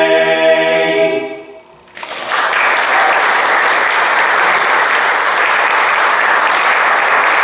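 An a cappella men's barbershop quartet holds its final chord and releases it about a second and a half in. Then an audience applauds steadily for the rest of the time.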